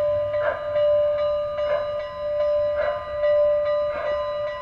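Locomotive bell ringing on the sound system of an O gauge model Great Northern S2 steam locomotive, struck about once a second with each ring sustaining into the next, as the engine creeps in at minimum speed for a station stop.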